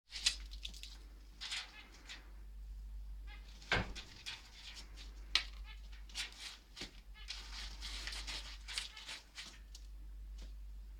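Australian king parrot at its aviary: a run of short scratchy rasps and sharp clicks, with a brief squeaky call about three and a half seconds in.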